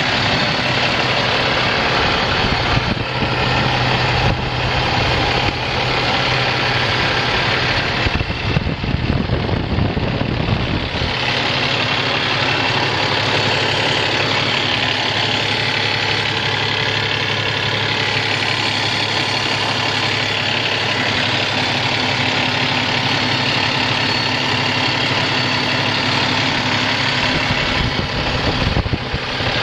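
A semi truck's Cummins ISX15 14.9-litre six-cylinder diesel engine idling steadily. A louder, rougher low rumble comes in for a few seconds about eight seconds in.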